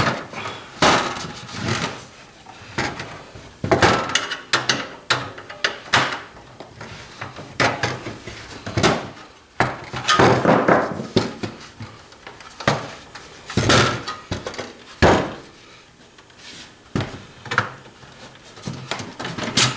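Satellite receiver being taken apart by hand: the plastic and thin sheet-iron case and parts clatter, knock and scrape in irregular bursts as they are pried and moved about.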